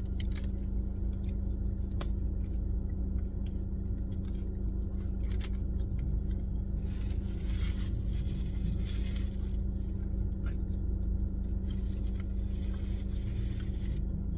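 Steady low hum of a running car heard inside the cabin, with stretches of chewing and burger-wrapper paper rustling about halfway through and again near the end.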